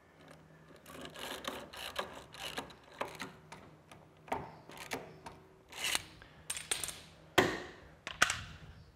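Stanley Yankee spiral ratchet screwdriver driving a screw into a wooden plank: a quick run of ratcheting clicks, then about half a dozen separate push strokes, each a short rasping whir, roughly a second apart.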